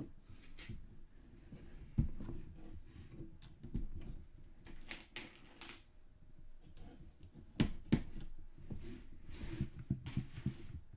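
Lego bricks being handled and pressed together: scattered small plastic clicks and knocks, the sharpest about two seconds in and twice near eight seconds, with brief soft rustling in between.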